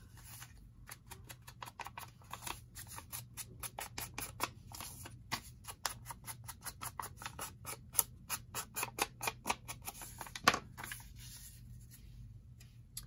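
Round ink blending tool scrubbed against the edges of a sheet of paper in quick scratchy strokes, about four or five a second, to ink them, with a sharper knock near the end of the strokes.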